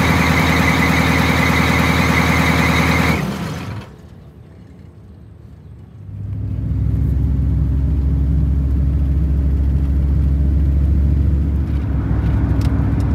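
Blue Bird Wanderlodge bus engine idling with a steady high squeal from its alternator belt, which is squeaky. The engine stops about three seconds in. After a quieter stretch, a steady low rumble of a car driving on the road takes over, heard from inside the car's cabin.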